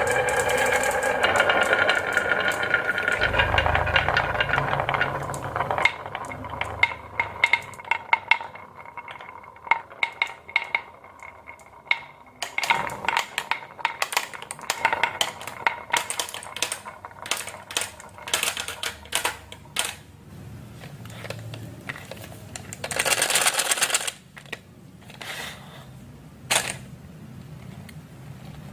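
Marbles rolling and clattering down a HABA wooden slope marble run and through clear plastic pipes. A steady rolling whir for the first several seconds gives way to many quick, irregular clicks and knocks as the marbles hit the track pieces, with a short dense rattle about three-quarters of the way through.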